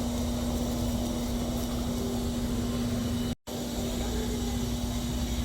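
Steady shop background hum with a constant low tone, such as store ventilation or refrigeration makes. The sound drops out completely for a moment about three and a half seconds in.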